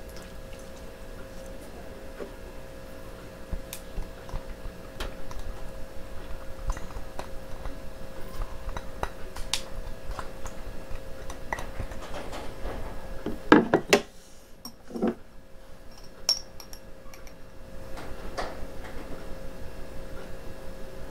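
Kitchen utensils knocking and clinking against cookware in a run of light, fairly regular taps, with a louder clatter about two-thirds of the way through. A faint steady hum sits underneath.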